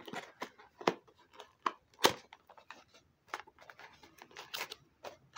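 Handling and opening a small cardboard mug box: a string of short taps, scrapes and rustles, the loudest sharp knock about two seconds in, as the box flaps are worked and a bubble-wrapped mug is drawn out.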